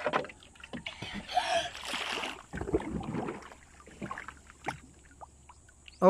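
Water splashing and sloshing against the side of a wooden boat, with a few sharp knocks on the wood, as a child climbs over the side into the sea. The splashing is heaviest in the first half, with single knocks at the start and again about five seconds in.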